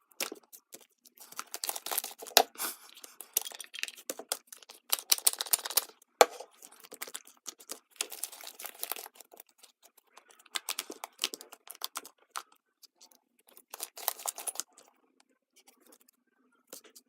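Fluffy slime being stretched and squeezed by hand, giving irregular bursts of small sticky crackles and clicks that thin out about three-quarters of the way through.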